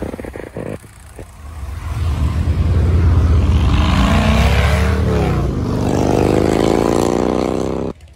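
Harley-Davidson FXDRS V-twin, a Milwaukee-Eight bored out to 131 cubic inches, running through a Blow Performance exhaust. It idles with an uneven, lumpy beat, then is revved up. The revs drop back and climb steadily again before the sound cuts off suddenly.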